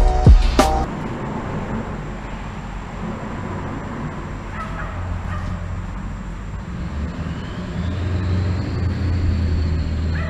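Steady low rumble of road traffic crossing the concrete bridge overhead, swelling midway and again near the end; a music track cuts off within the first second.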